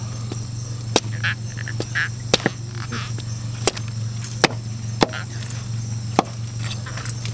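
A large knife chops a baung (river catfish) into steaks on a round wooden chopping board. There are about six sharp, irregular chops through flesh and backbone, over a steady low hum.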